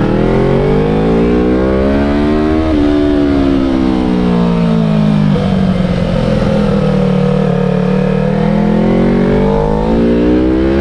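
Sport motorcycle's engine running under way. Its pitch climbs for the first few seconds, falls back and holds lower through the middle, then climbs again near the end. Wind rumble on the microphone runs underneath.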